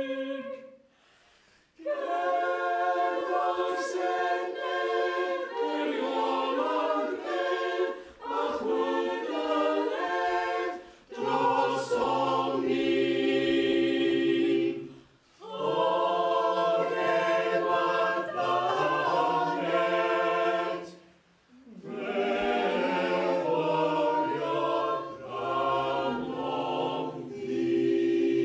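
A choir singing unaccompanied, in long phrases broken by short pauses; lower voices join about eleven seconds in.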